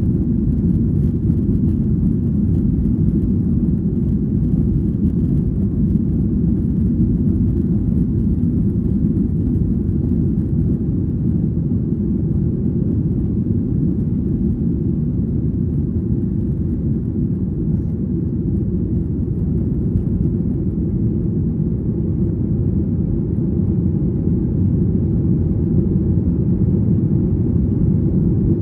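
Boeing 737-800's CFM56-7B jet engines at takeoff thrust, heard from inside the cabin: a loud, steady, low rumble. A light runway rattle fades out about ten seconds in as the airliner leaves the ground and climbs away.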